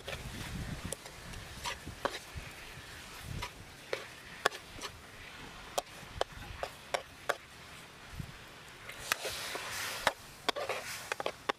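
Metal ladle knocking and scraping against a steel wok as peeled boiled eggs are turned in a thick bubbling sauce: sharp irregular clicks about one or two a second, over a faint sizzle that grows a little stronger near the end.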